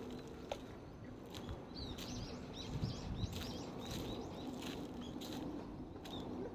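Footsteps of a person walking at an even pace. A small songbird sings a quick run of short high chirps from about a second and a half in until about six seconds.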